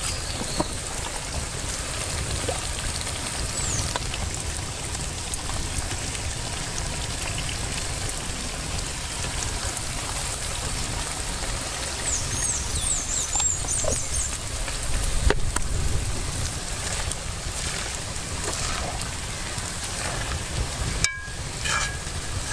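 Pot of fish-egg curry simmering over an open wood fire while being stirred: a steady rain-like hiss with scattered small crackles.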